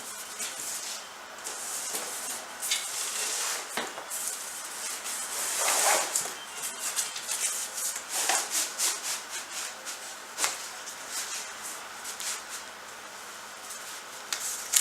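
Cloth and cardboard rustling and scraping as pant legs are pulled over cardboard leg forms, with scattered light taps and clicks. A longer rustle swells about six seconds in.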